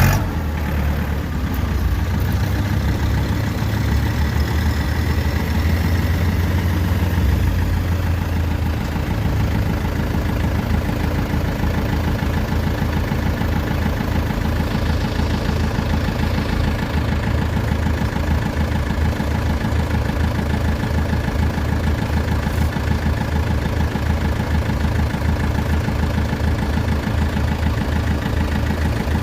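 Diesel engine of a farm machine running steadily. Its low rumble shifts about nine seconds in.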